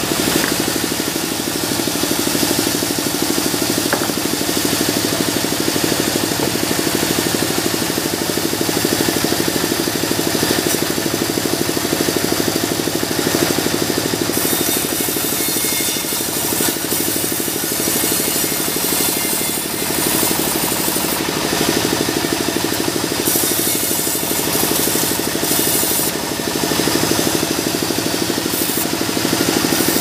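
Band sawmill running and sawing mahogany logs into planks: a steady hum under the constant hiss of the blade cutting, dipping slightly now and then as pieces are fed through.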